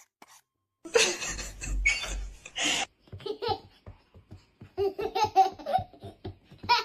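A small child laughing in a run of short, repeated bursts, after a brief silence at the start.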